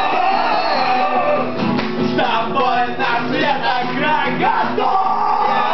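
Men singing loudly to a strummed guitar, one belting a long drawn-out note that breaks off about a second and a half in and comes back near the end.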